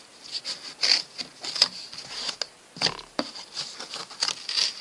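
Scissors cutting through corrugated cardboard: an irregular series of short crunching snips, with a brief pause a little past two seconds in.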